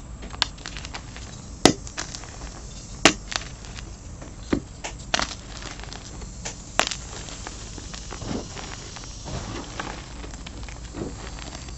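Dyed gym chalk blocks snapping and crumbling in bare hands. Several sharp snaps come in the first seven seconds, then softer crunching of the powdery pieces as handfuls are squeezed.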